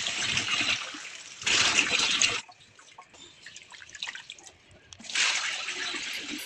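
Tap water running and splashing into a sink in stretches: at the start, briefly again about a second and a half in, and once more from about five seconds in, with a quiet gap between.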